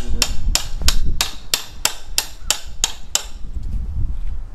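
A run of sharp, evenly spaced clicks, about three a second, that stop about three seconds in, followed by a low rumble.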